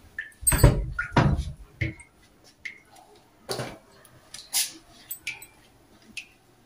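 Kitchen handling sounds: a run of sharp knocks and clatters, loudest in the first second and a half, with short high squeaks in between.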